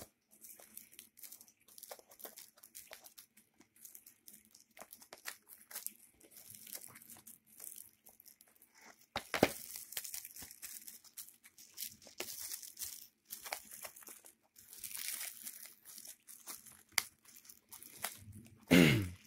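Plastic shrink wrap on a DVD box set crinkling and tearing as it is picked at and pulled off. It goes in irregular crackles, with a few louder rips.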